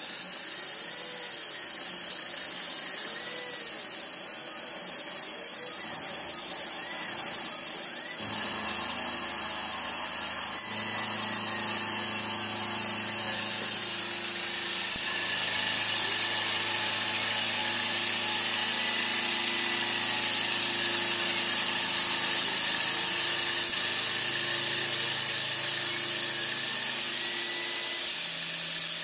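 CNC milling machine cutting metal: a steady high-pitched squeal of the spindle and cutter over a motor hum that shifts pitch in steps as the machine moves. It gets louder about halfway through.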